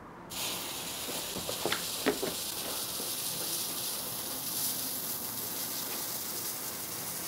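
Lit fuse of a firework banger fizzing with a steady hiss that starts suddenly just after the start, with a few sharp crackles about two seconds in.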